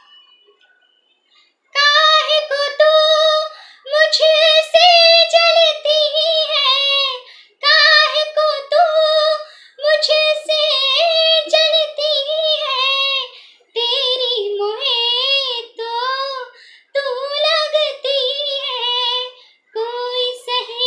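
A young woman singing a Hindi film song solo and unaccompanied, in phrases of long wavering notes with short breaks between them. She begins about two seconds in.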